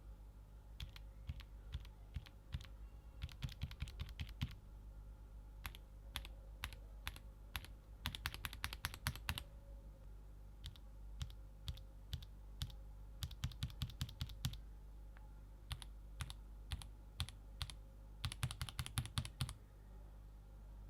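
Mechanical keyboard typing on Gateron G Pro Red linear switches, switching to Gateron Speed Silver Pro linear switches about ten seconds in. Each switch is heard as a few separate key presses, then a fast run of keystrokes.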